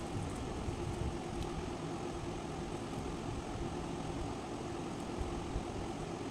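Steady low background rumble with a faint constant hum.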